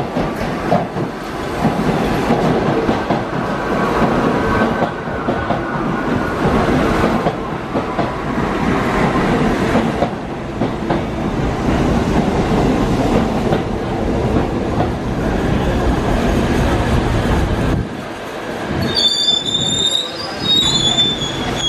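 New York City R68A subway train pulling into a station, its wheels and motors rumbling with some clickety-clack over the rail joints. Near the end a high, wavering squeal of the brakes and wheels sets in as it slows to a stop.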